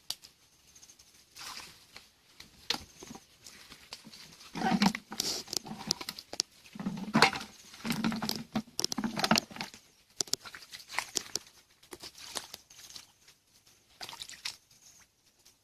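Bare feet and hands sloshing and squelching in a shallow, muddy stream, with irregular splashes and clicks that are busiest and loudest through the middle.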